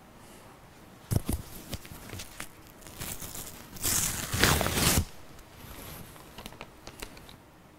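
Clothing rustling and handling, with a few sharp knocks about a second in. Around four seconds in comes a loud rustling, tearing noise lasting about a second, as a paper label is pulled off a T-shirt.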